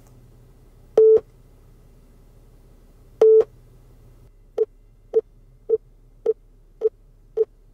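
Auto echo-cancellation calibration beeps from an aftermarket wireless CarPlay/Android Auto adapter, played through the car's audio system while the adapter measures the microphone's delay. There are two longer beeps about two seconds apart, then a run of short beeps at the same pitch, about two a second.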